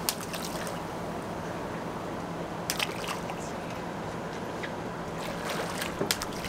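Water splashing as a tarpon strikes at a fish scrap held at the surface, then the water sloshing and lapping, with brief splashes a little under three seconds in and again near the end. A steady low hum runs underneath.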